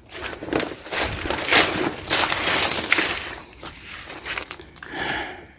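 Irregular crunching and rustling of someone moving about in dry vegetation, with footsteps and handling of the rope, easing off near the end.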